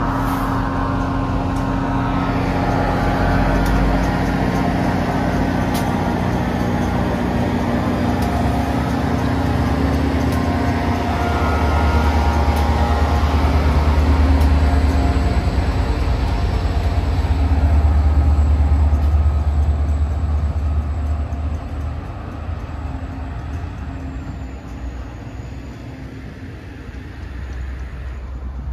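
Trains pulling out: a CDOT GP40-3H diesel locomotive and Kawasaki M8 electric multiple-unit cars moving past. A deep diesel engine rumble is loudest about halfway through, with a steady high whine above it, and the sound fades in the last few seconds.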